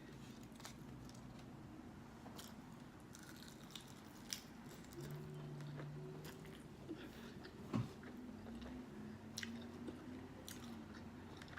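Close-miked biting and chewing of crispy, sauce-dripping fried chicken wings: a string of small wet mouth clicks and smacks, with one sharper click about two-thirds of the way through.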